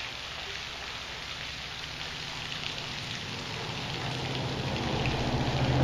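Rain pattering on the creek's water surface, an even hiss of small drops. A low rumble builds over the last couple of seconds.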